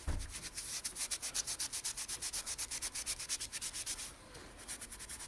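An eraser rubbed quickly back and forth over a lock's keypad surface, scrubbing off sticky adhesive residue, in an even rhythm of several strokes a second that turns softer about four seconds in.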